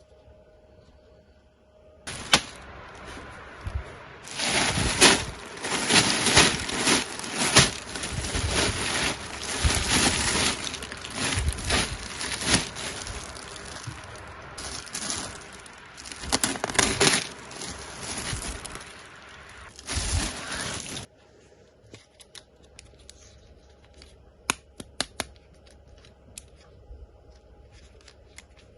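Packaging being crinkled and torn open for about twenty seconds, in uneven bursts, then stopping abruptly and giving way to scattered light clicks and taps.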